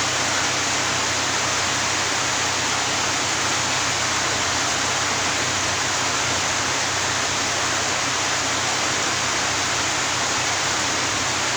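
Steady, even hiss-like background noise with a faint low hum beneath it, unchanging throughout.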